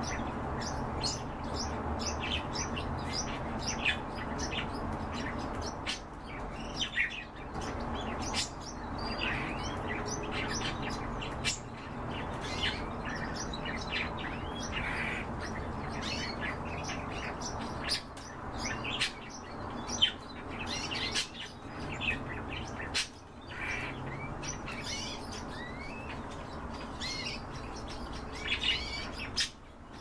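Small songbirds chirping and twittering in quick short notes, with a few sharper louder calls, over a steady low hum.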